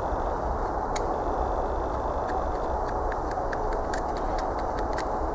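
A Real Steel Bushcraft 2 knife, its D2-steel blade scandi-ground, whittling dead wood: scattered light clicks as the edge bites into the wood, over a steady background rush.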